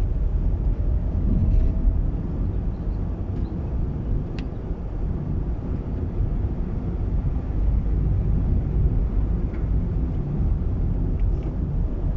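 Steady low rumble of a car moving along a road: tyre and engine noise, with a few faint chirps over it.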